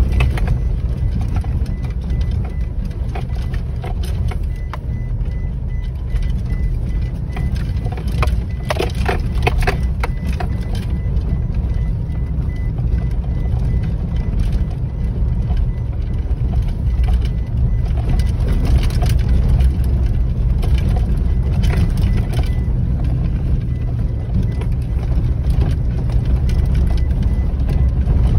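Steady rumble of engine and tyre noise inside a vehicle's cabin on a rough dirt road. A cluster of knocks and rattles comes about nine seconds in, as the vehicle jolts over bumps.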